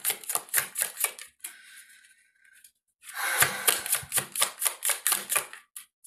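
A deck of tarot cards being shuffled by hand: a quick run of card clicks, about eight a second, then a pause of about a second, then a second, longer run.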